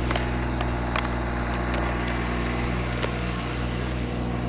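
An engine running steadily at one constant speed, with a few sharp clicks over it.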